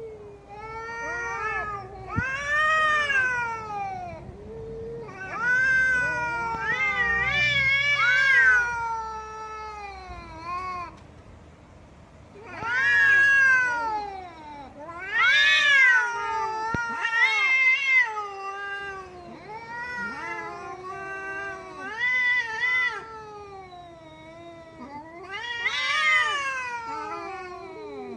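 Domestic cat meowing and yowling over and over, long drawn-out calls that rise and fall in pitch, some held for a couple of seconds, with brief pauses between them.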